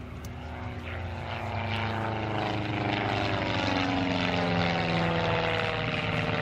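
Cosmic Wind 'Ballerina' Formula One racing monoplane's piston engine and propeller droning as it flies past. It grows steadily louder, then its pitch slides down from about halfway through as it passes.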